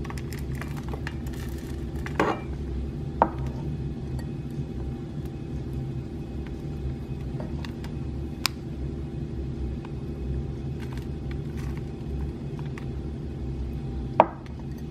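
A steady low mechanical hum, with a few light, sharp clicks of kitchen utensils against crockery or the pan: two about two and three seconds in, and a louder one near the end.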